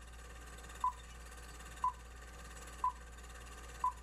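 Film-leader countdown sound effect: a short, mid-pitched beep once a second, four times, over a steady hiss and low hum. Each beep marks a number of the countdown.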